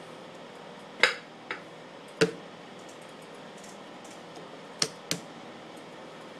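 Five sharp slaps of a lump of wet clay being patted and slapped by hand at a pottery wheel, coming in two groups, over a steady background hiss.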